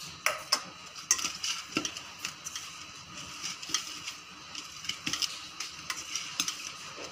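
A hand kneading grated boiled potato and bread crumbs in a steel bowl: a soft squishing with irregular scrapes and taps of fingers against the metal.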